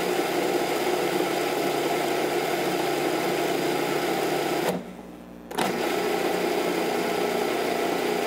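Cuisinart food processor motor running, its blade grinding dry oats into a fine flour. It stops for about a second around the middle and then starts again.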